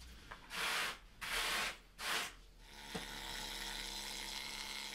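Three short hissing bursts, about half a second each, followed by a steady faint hum.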